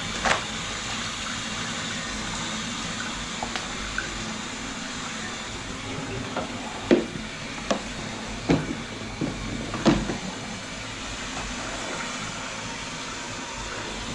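Kitchen faucet running water into a stainless steel sink and down the drain, flushing the line after a grease clog was cleared. Several sharp knocks and clatters come about halfway through.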